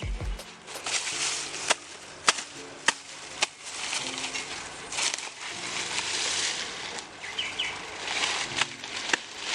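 Rustling, scraping noise that swells and fades, broken by sharp knocks or snaps at uneven intervals, about one or two a second.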